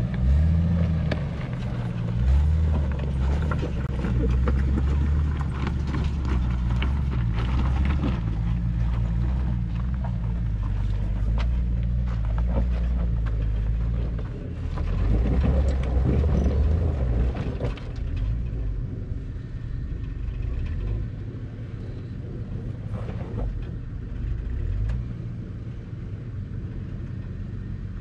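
Red off-road 4x4's engine labouring under load as it climbs a steep, loose dirt hill, with gravel and stones crackling under the tyres. The engine sound drops after about eighteen seconds as the vehicle gets higher up the slope.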